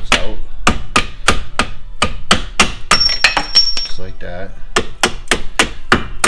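Hammer striking bolts over and over to drive them out of the suspension during a front wheel bearing hub replacement, with quick metallic blows about three a second.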